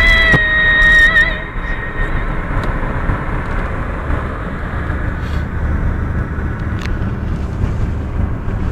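Music ends about a second in, leaving the steady road and engine noise of a car driving, heard from inside the cabin.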